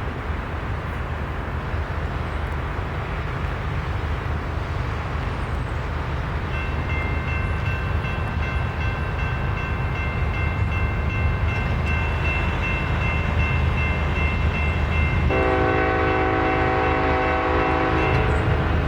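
Train approaching with a steady low rumble that grows louder, joined after about a third by a steady high-pitched ringing tone. Near the end the locomotive's multi-chime air horn sounds one long blast of about three seconds.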